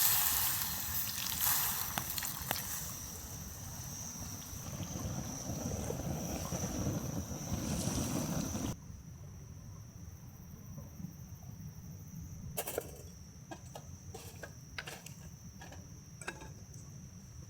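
Food sizzling and bubbling as it cooks for about nine seconds, then cut off suddenly. A quieter stretch follows with a steady high insect trill and scattered light clicks and taps.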